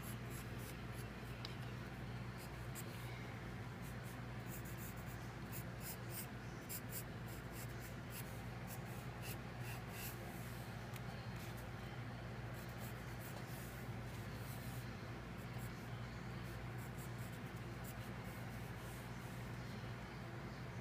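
Wooden graphite pencil scratching on drawing paper in many short, irregular sketching strokes, over a steady low hum.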